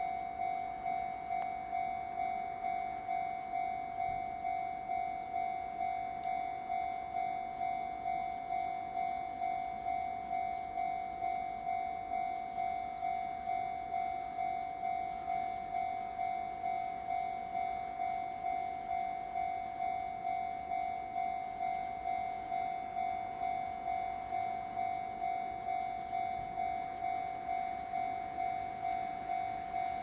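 Japanese level-crossing warning bell ringing steadily, a repeated electronic 'kan-kan' ding at about one and a half strokes a second, sounding while the crossing signals flash for passing and approaching trains.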